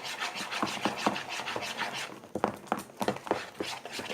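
Spoon stirring and scraping slime made of glue and shaving foam in a pot: quick rhythmic scrapes, about four or five a second, giving way about halfway through to sparser, sharper knocks and scrapes.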